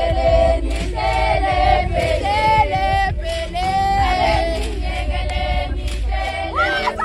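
A group of young women singing a traditional Zulu song together, with a steady low rumble underneath.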